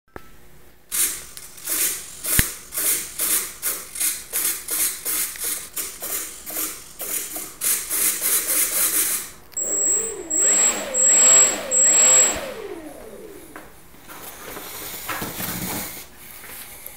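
Small electric motors and propellers of a foam RC airplane run in short repeated bursts, about two or three a second. Then they run steadily, wavering up and down in pitch with a thin high whine.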